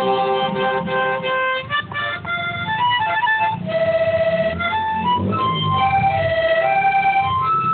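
Harmonica (mouth organ) playing a melody that steps between short and held notes.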